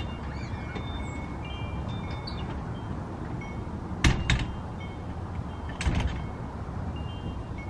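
Wind chimes ringing lightly, scattered high notes at a few fixed pitches, over a low steady rumble. Two sharp knocks stand out, about four and six seconds in.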